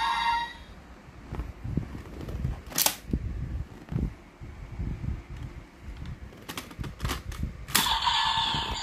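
Handling of a DX Kamen Rider toy transformation belt and its plastic buckles: soft knocks and several sharp plastic clicks as the buckles are set and worked. Near the end the belt's electronic sound effect starts from its small speaker.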